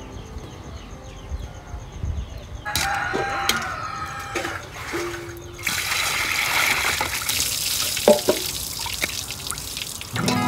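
Water sloshing and splashing as fish pieces are rinsed by hand in a basin. About six seconds in, a steady rushing pour of water runs over the fish in a stainless steel colander.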